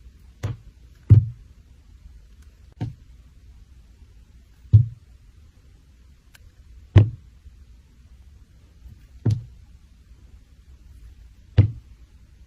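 Seven dull knocks, single heavy impacts spaced unevenly, about two seconds apart in the later part.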